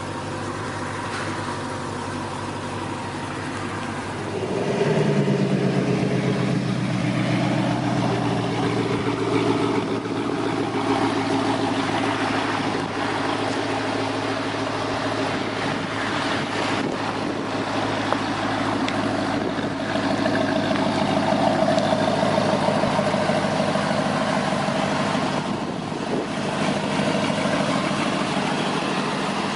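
1979 Pontiac Trans Am's V8 engine running. About four and a half seconds in it gets louder as the revs come up, then it settles and runs steadily.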